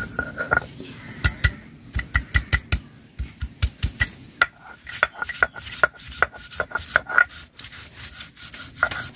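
Stone roller crushing and grinding ginger on a flat sil grinding stone. About a second in come quick runs of sharp knocks as the roller is pounded onto the pieces. From about the middle on, scattered clicks sound over stone rubbing on stone as it is rolled back and forth.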